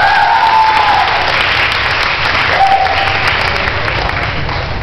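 Audience applauding, with a few short calls from the crowd.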